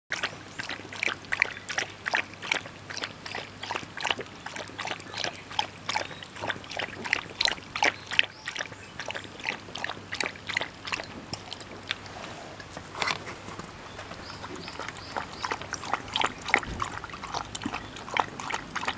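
Shiba Inu lapping water from a stainless steel bowl: quick wet laps of the curled tongue, about three to four a second, with a short lull about two-thirds of the way through.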